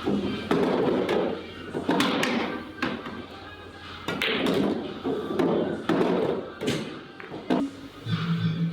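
Billiard balls struck by a cue and clacking together, with sharp knocks from ball impacts scattered through, over background music.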